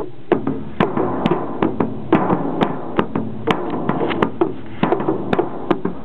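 A steady percussive beat, sharp strokes at about two a second with lighter strokes between, of the kind beaten out to accompany a wrestling bout.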